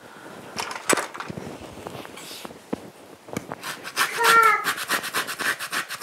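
Orange peel being zested on a flat metal hand grater inside a stainless steel bowl: a quick run of rasping strokes starts about three and a half seconds in. There is a short pitched squeak among the strokes about four seconds in. Before that come a few light knocks of handling.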